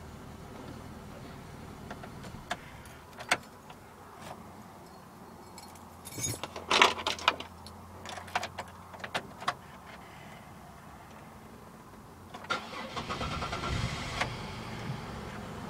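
Sharp metallic clicks and knocks, densest about six to seven seconds in, from a 2001 Chevrolet Impala with a failing starter. About twelve and a half seconds in, the engine cranks and catches, then keeps running.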